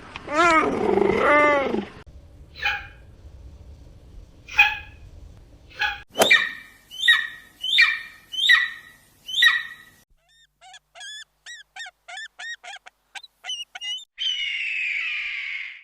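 A run of different animal calls, one clip after another: a wavering pitched call, a few spaced cries, a regular string of high calls about two a second, a quick series of short chirps, then a harsh rasping screech near the end.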